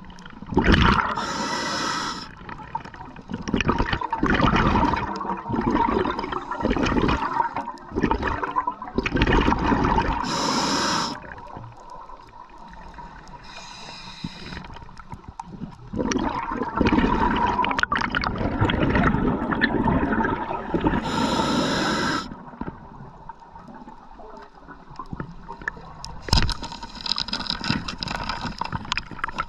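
Scuba regulator breathing underwater: short hissing inhalations, each about a second long, alternating with longer rumbling, bubbling exhalations in slow cycles.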